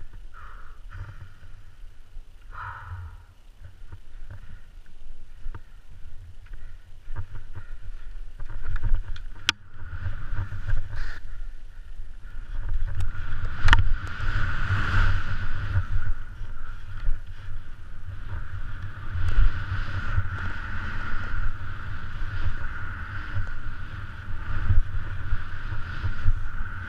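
Skis hissing through powder snow with wind rumbling on the helmet camera's microphone. The rush gets louder about halfway through, with a couple of sharp clicks.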